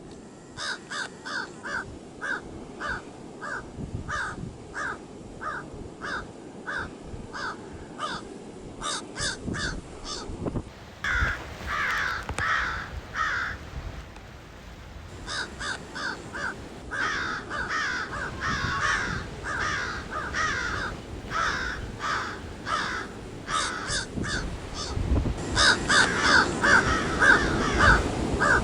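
Crows cawing in long runs of short, harsh caws, about two a second, several birds overlapping at times. There is a brief lull about halfway through, and the calls are loudest near the end, over steady low background noise.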